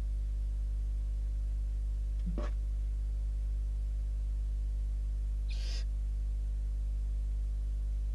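Barn owl chicks calling twice over a steady electrical hum: a brief call about two seconds in, then a short hiss a little after five seconds.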